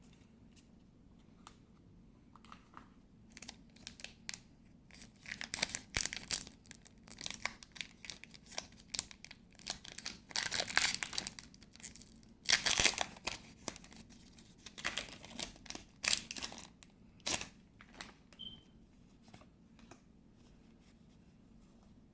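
Foil Pokémon booster pack wrapper being torn open and crinkled: a run of short rips and crinkles, loudest about halfway through.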